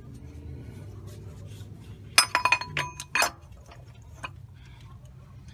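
A quick cluster of metallic clinks and rattles with a brief ringing, about two seconds in and lasting about a second: a metal water pump pulley being handled and fitted onto the new water pump's hub.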